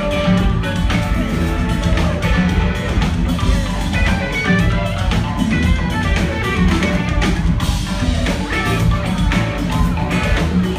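Live rock band playing: electric guitar over bass and a drum kit, heard from within the audience.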